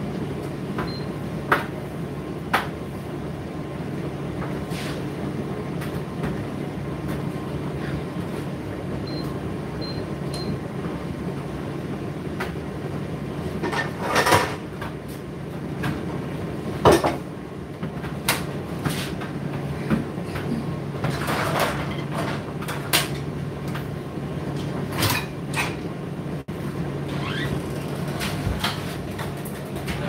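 Indesit IDC8T3 condenser tumble dryer running mid-cycle: a steady low motor and fan hum, with irregular knocks and clunks from the load tumbling in the drum, a few of them noticeably louder.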